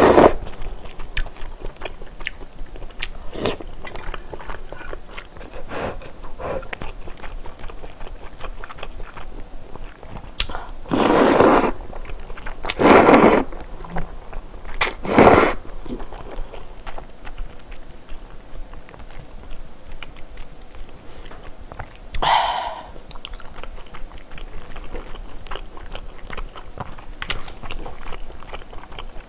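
Close-miked eating of spicy seafood kalguksu noodles: steady wet chewing and mouth clicks, broken by several loud slurps of noodles about 11, 13 and 15 seconds in.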